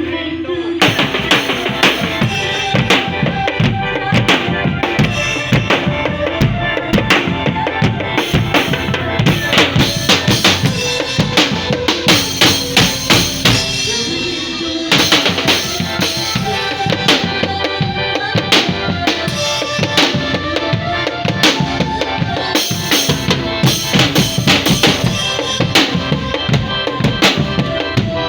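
Loud music driven by steady, fast drumming with bass drum and snare hits, and melodic parts above. The beat briefly thins out about halfway through.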